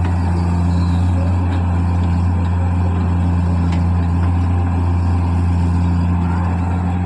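Diesel engine of heavy machinery running steadily at an even speed, a deep constant drone with no change in pitch.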